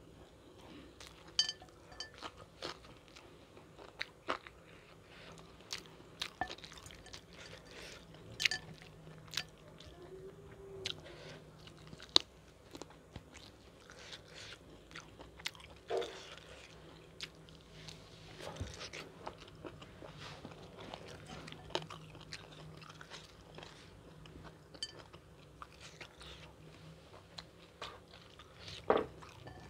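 Close-miked eating: irregular crunchy bites and chewing of fried chicken and long beans with green-chilli sambal, with sharp crunches every second or so.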